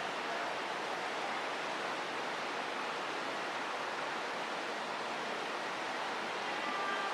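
Steady, even rushing background noise with no change in level, with a few faint, brief high tones near the end.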